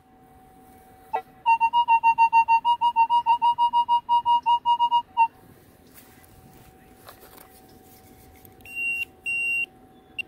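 Metal detector beeping rapidly over a buried target in a freshly dug hole, a pulsing mid-pitched beep about six times a second for nearly four seconds, then two short higher beeps near the end, over a faint steady hum. The detectorist bets the target is a Coke can.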